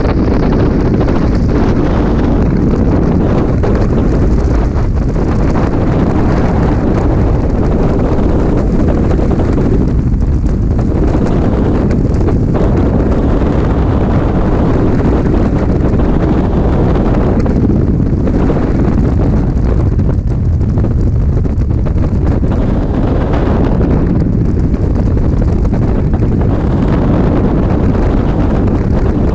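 Freefall wind rushing over a skydiver's camera microphone: a loud, steady, low rush of air that buffets the microphone throughout.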